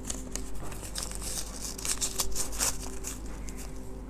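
Paper card and cardboard earbud box rustling and crinkling as they are handled, with a cluster of quick crackles in the middle.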